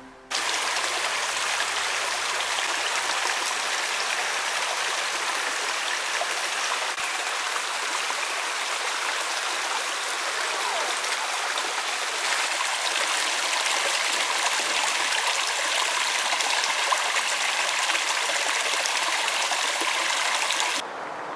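A stream of water running steadily, a dense, even rushing that starts suddenly and cuts off abruptly near the end.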